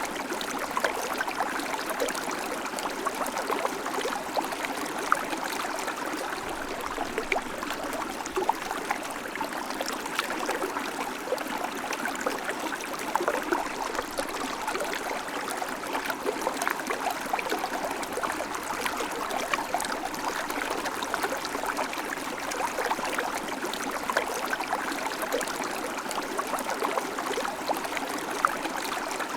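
River water flowing steadily over stones, a continuous rushing with many small splashes and trickles.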